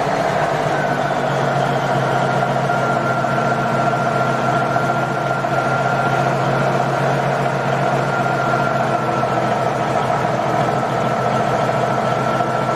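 Cummins Big Cam III NTC-400 inline-six turbo diesel idling steadily during warm-up after a cold start. A steady high whine rides over the idle from about a second in.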